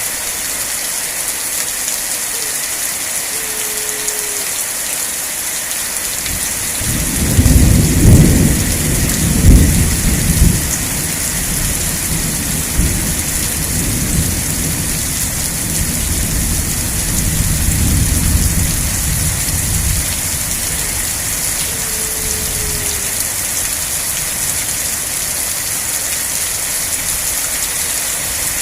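Steady rain hissing throughout, with a roll of thunder that starts about a quarter of the way in, is loudest in its first few seconds with several sharp peaks, then rumbles on lower and fades out a little past the middle.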